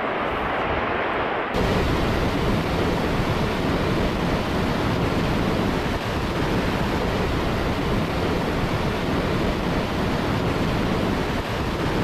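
Steady heavy rush of a tall waterfall's plunging water and the churning pool at its base. About a second and a half in, the sound suddenly becomes louder and brighter.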